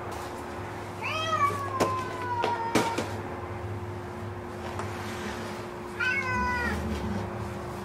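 A cat meowing twice: a long drawn-out meow about a second in and a shorter one near the end. A few sharp knocks come during the first meow.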